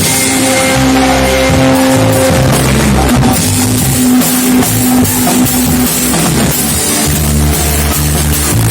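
Loud band music with a drum kit and deep bass notes, with no singing.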